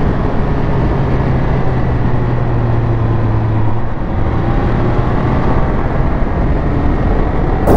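Triumph Speed Triple 1200 RS's three-cylinder engine running at a steady cruise under rushing wind and road noise, heard from the rider's helmet. The engine's pitch holds steady for about four seconds, then eases off slightly.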